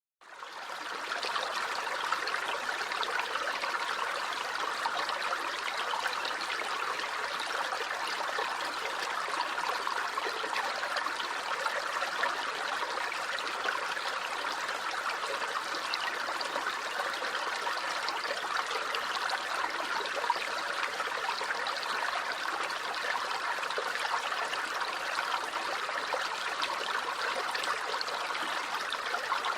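Small stream running and babbling over stones, a steady rush with fine trickling detail, fading in over the first second.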